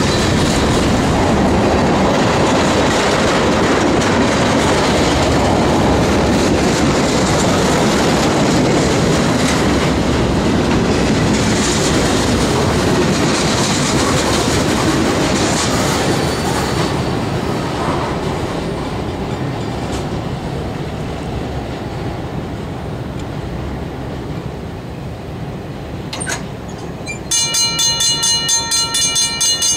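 Freight train of covered hoppers and tank cars rolling through a grade crossing, with steady wheel-on-rail clatter that fades as the last cars go by. Near the end there is a single clank, then the crossing bell starts ringing loudly in even, repeated strokes as the gate arm rises.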